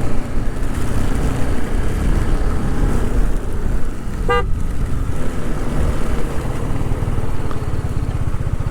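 Motorcycle engine running steadily under way, with one short horn toot about four seconds in.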